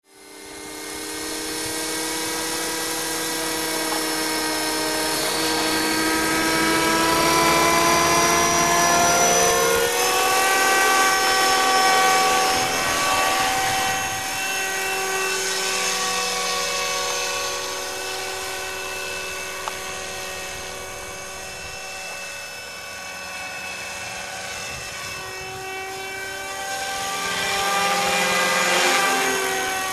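Electric RC model helicopter (Thunder Tiger Mini Titan E325) in flight: the motor and gear whine over the main rotor's beat. The pitch slides as the model passes, loudest about a third of the way in and again near the end.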